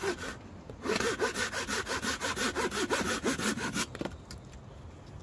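Flora Guard folding pruning saw cutting through a green branch laid across a stump, in quick, even push-pull strokes. The sawing runs for about three seconds and stops about four seconds in.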